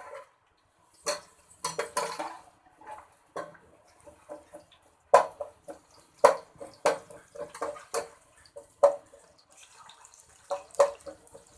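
Metal spoon clinking and scraping against a cooking pot while stirring onions as they fry, in irregular knocks with short pauses between, a few of them louder.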